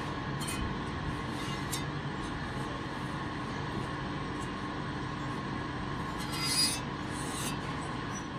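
Metal lathe turning a cast iron brake drum: the machine runs with a steady hum while the cutting tool scrapes the iron. Short high scrapes come and go, with a louder one about six and a half seconds in.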